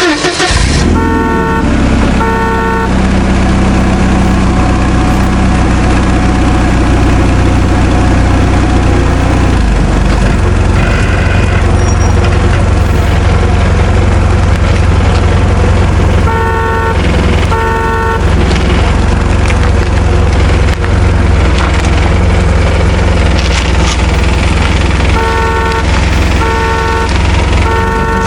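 A vehicle engine running with a steady low rumble, while a horn honks two short blasts three times: near the start, about halfway through, and near the end.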